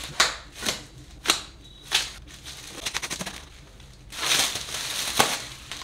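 Plastic stretch wrap being pulled and torn off a cardboard box: a few sharp crackling snaps in the first two seconds, then a longer stretch of loud crinkling about four seconds in.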